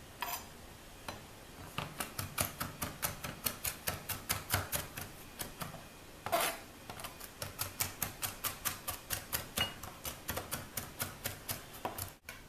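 Chef's knife chopping tomato on a plastic cutting board, the blade knocking on the board in quick, even strokes of about four a second, starting about two seconds in.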